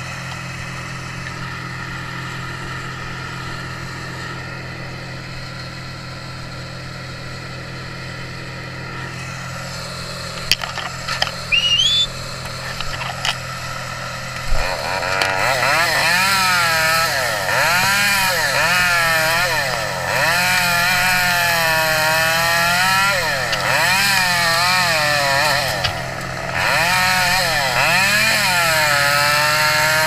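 A chainsaw engine running steadily at first, then a few sharp knocks, then from about halfway the saw revs up and down over and over as it cuts, loud, with a short lull about four seconds before the end.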